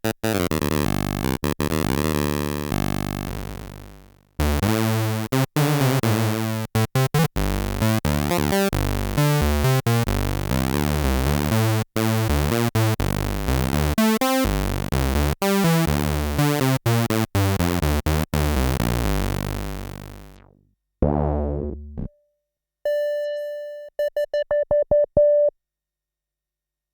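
Yamaha CS01 analog monosynth playing a fast run of bright, rapidly changing notes that fades out twice. Near the end, a short note is followed by a quick string of plain, repeated tone blips, and then the synth stops.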